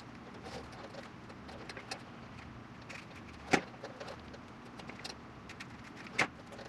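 Hands handling a wiring harness and its mesh loom: light rustling and small clicks, with two sharper clicks about three and a half and six seconds in.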